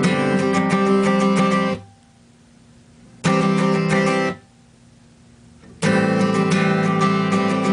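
Background music that cuts out abruptly twice, each time for about a second and a half: first about two seconds in, then again about four and a half seconds in, snapping back in full each time.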